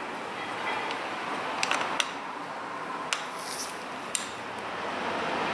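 Several small, sharp metal clicks and clinks from a screwdriver working on a mobility scooter armrest's adjuster mechanism, with a brief scrape in the middle, over a steady background hiss that grows louder near the end.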